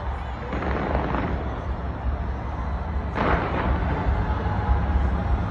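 Fireworks going off in a continuous low rumble of booms, with a louder crackling burst about three seconds in.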